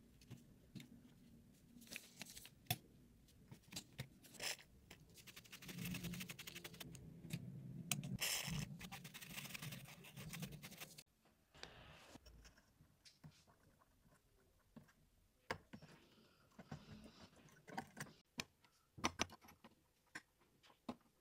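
Close-up, faint scraping and clicking of a thin metal pick working grime out of a smartphone's edge openings, with a dense rustling stretch of a stiff bristle brush sweeping over the phone's edge; this stops abruptly about halfway, and sparser scratches and clicks of a metal pick in a small round port follow.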